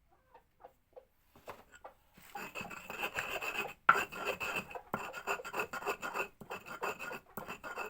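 Mortar and pestle grinding kaffir lime leaves and garlic with a little water: a rough, rasping rub in strokes, starting about two seconds in, with short breaks every second or so. Before it, a few faint short ticks.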